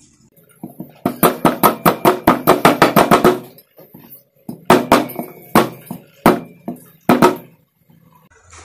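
A hammer tapping a thin steel electric-fan bushing retainer against a cast-iron weight plate, with short metallic rings: a fast run of about six taps a second for a couple of seconds, then a handful of single, spaced blows. The taps are flattening the retainer, which had been bent out of shape.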